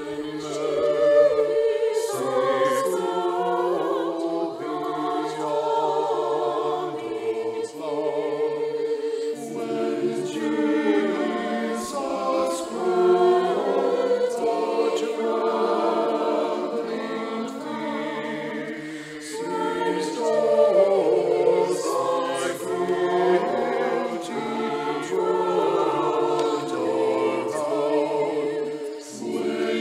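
Mixed choir of men's and women's voices singing a church anthem in harmony.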